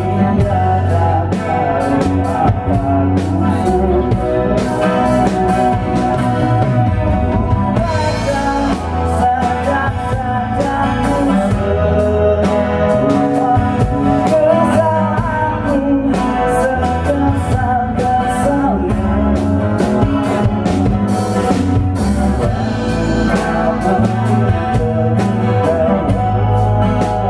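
Live band playing with acoustic guitar, electric bass, drum kit and a hand drum, a continuous groove with regular drum and cymbal strokes.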